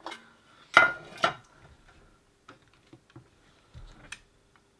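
Sharp clicks and taps from handling an opened CB radio while unplugging its speaker lead from the board: two loud clicks about a second in, then a scatter of lighter ticks.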